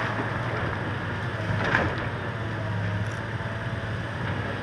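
Diesel engine of a demolition machine running steadily while it tears into a wooden house, with one sharp crack of breaking wood about a second and a half in.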